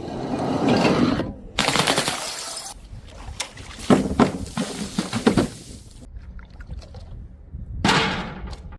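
Glass bottles thrown onto stairs, smashing in a series of loud crashes with clattering and clinking of pieces between them.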